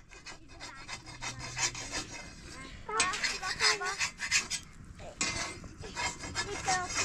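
Rapid, repeated scraping strokes, with a brief pitched sound about three seconds in.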